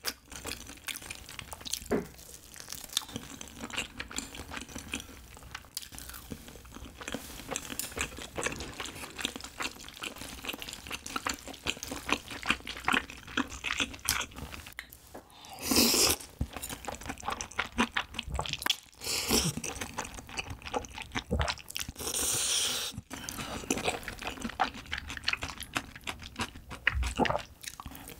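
Close-miked eating sounds: wet chewing, smacking and mouth clicks of chewy rice cakes (tteok) and ramen noodles in spicy sauce, with a few louder slurps in the second half.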